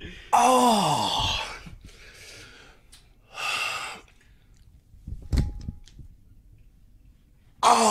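A man's loud, wordless moan sliding down in pitch, a comic imitation of climaxing, followed by a sharp breathy exhale. There are a couple of soft knocks a little after halfway, and another falling moan starts near the end.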